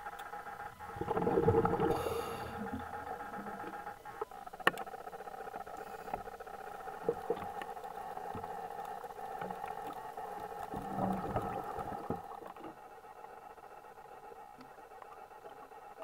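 Underwater ambience: a steady hum of several held tones with scattered clicks and crackles. Swells of rushing, gurgling water noise come about a second in and again around eleven seconds, and the sound drops a little after about twelve seconds.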